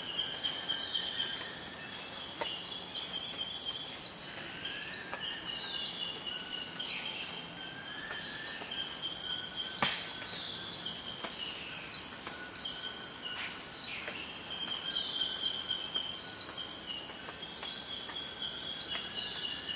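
Dense, steady, high-pitched rainforest insect chorus, with many short calls gliding up and down in pitch over it and a single sharp click about ten seconds in.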